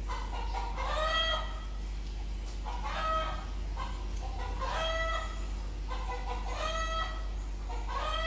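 A chicken calling: five short calls, roughly one every two seconds, each rising then falling in pitch, over a steady low hum.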